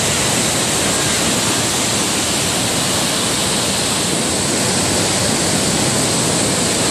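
Waterfall, its falling water rushing loudly and evenly with no change.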